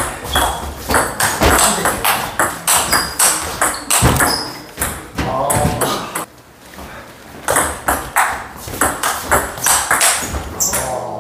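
Table tennis ball clicking off rackets and the table in quick rallies, with a short lull about six seconds in before the clicks resume.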